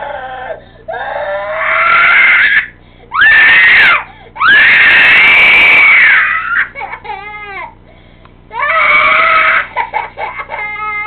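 Young child crying and screaming in a tantrum against being put down for a nap: four long, loud wails, with short, broken sobs between them.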